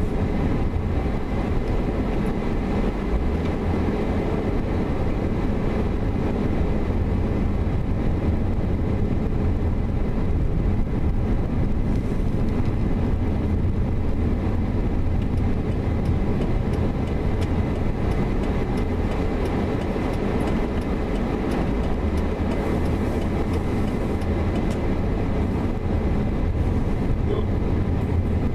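A car driving, heard from inside the cabin: a steady, low engine and road-noise rumble that stays even throughout.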